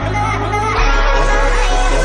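Electronic backing music of a funk-style parody song, with a heavy bass that steps down to a deeper, louder note about three-quarters of a second in.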